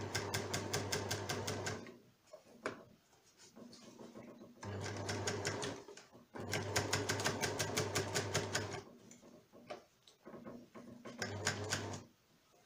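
Overlocker (serger) stitching through fabric in four short runs with pauses between. The motor hums with a fast, even clatter of stitches.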